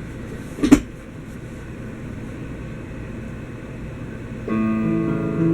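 Low steady rumble with one sharp knock under a second in, then about four and a half seconds in a guitar chord is strummed and rings on as the song's introduction begins.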